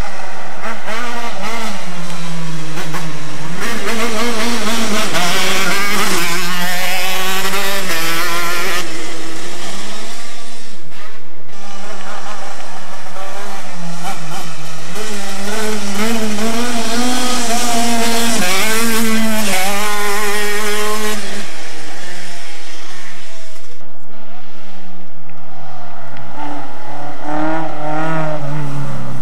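Small open single-seater race car's engine revving hard through the gears as it climbs, the pitch rising and dropping back at each shift, in two long stretches of full throttle. Near the end a hatchback racing car comes up revving.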